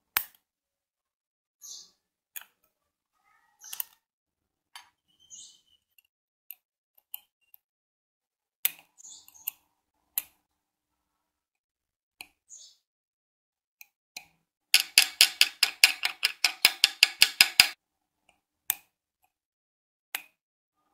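Small metal clicks of tweezer tips catching and slipping on a stuck brass part in a tire inflator's metal housing. They come scattered at first, then late on as a fast run of about twenty clicks over some three seconds.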